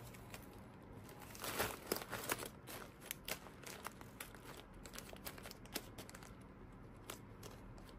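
Small plastic zip bags full of letter beads crinkling and rustling as hands handle and press on them, with irregular sharp crackles that are busiest about two seconds in.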